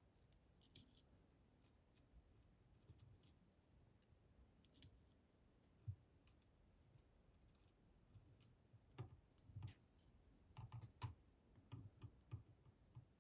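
Faint, scattered small clicks and taps from the metal parts of a disassembled Bramah-style pump lock as its last springs are worked out of the housing. The clicks are sparse at first and come closer together in the last few seconds.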